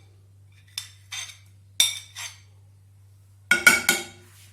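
Cooking utensils clinking: a spoon tapping against a pan or bowl a few times, then a louder burst of ringing metal clinks near the end as the chopped garlic is scraped into the hot pan.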